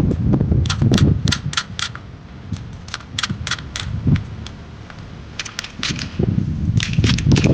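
Clusters of sharp clicks and clatter, like small hard parts being handled. Low rumbling at the start and again near the end.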